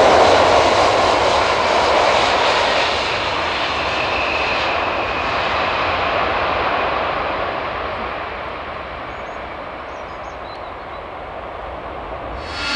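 Twin jet engines of a Boeing 767 freighter roaring steadily as it touches down and rolls out on the runway, the sound fading gradually as the aircraft moves away.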